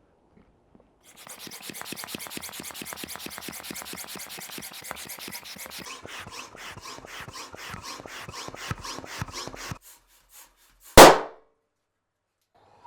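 Balloon being inflated with a pump: a long run of rasping pump strokes, fast at first and slower after about six seconds, stopping near ten seconds. About a second later the balloon bursts with a single very loud pop.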